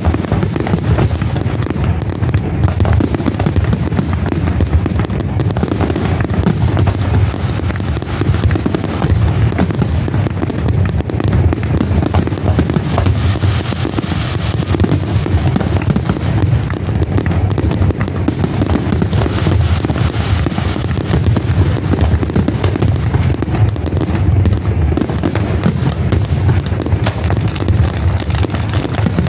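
Fireworks display: a dense, continuous barrage of aerial shell bursts, rapid overlapping bangs and crackling with no pause.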